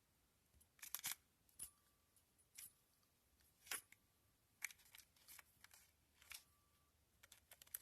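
Faint scattered clicks and light metallic scrapes from handling a used turbocharger, whose shaft is being spun and rocked by hand to check it; it spins freely with no shaft play.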